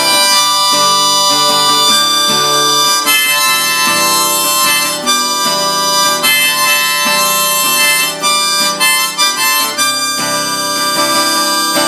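A harmonica plays an instrumental break of sustained, chord-like notes over acoustic guitar strumming.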